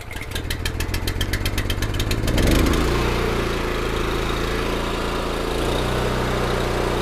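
A BCS walk-behind tractor's single-cylinder Honda four-stroke engine is pull-started and catches. It fires in quick, uneven pulses for about two seconds, peaks at its loudest, then settles into a steady run.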